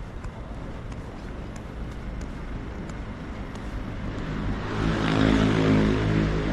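City street ambience, then a car drives close past about five seconds in, its tyre rush swelling and easing over a steady engine hum.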